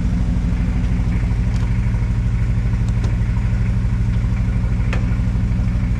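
A car engine idling steadily close by, with a couple of faint clicks over it.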